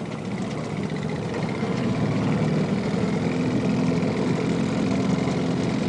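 Fishing boat's engine running steadily at low speed, a constant hum that grows a little louder over the first two seconds and then holds.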